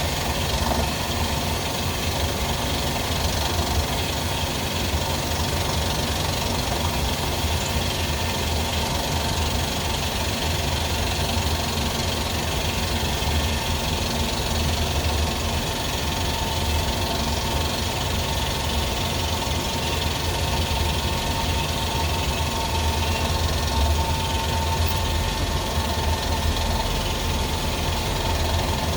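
Steady machinery hum with a strong low drone and a thin whine near 1 kHz that grows louder about two-thirds in. These are the anomalous noises at the back of the FH680 machining center, near a bearing suspected to be bad.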